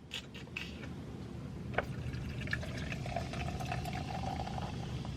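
Canada Dry ginger ale poured from a freshly opened can into a glass, fizzing. A few light clicks and a sharp tick come first, then a steady pouring tone from about halfway.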